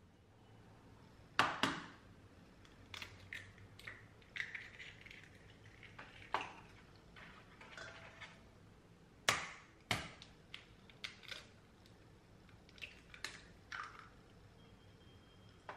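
Eggs knocked on the rim of a stainless steel mixing bowl and broken open over butter: a few sharp knocks with softer shell crackles and clicks between them.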